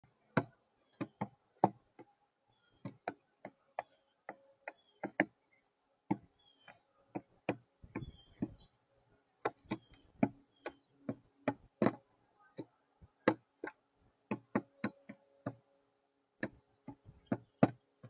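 Rock pigeon pecking seed off a hard feeder tray: a long, irregular run of sharp taps of its beak on the surface, roughly two a second, some in quick pairs and clusters.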